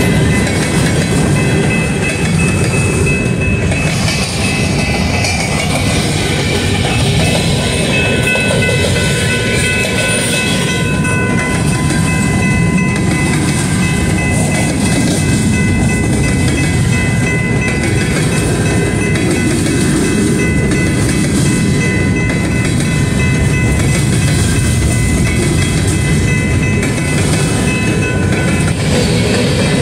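BNSF freight train of covered hopper cars rolling past close by: a steady, loud noise of steel wheels running on the rails, with steady high ringing tones held over it.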